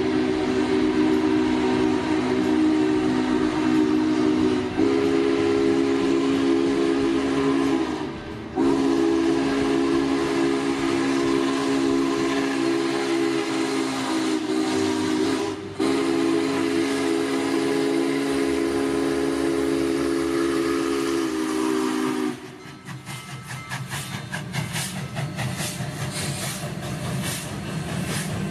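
Union Pacific 844, a 4-8-4 steam locomotive, sounding its steam whistle in four long blasts with short breaks, a chord of several notes. About 22 seconds in the whistle stops and the engine passes close by with a rapid rhythmic clatter and a low rumble.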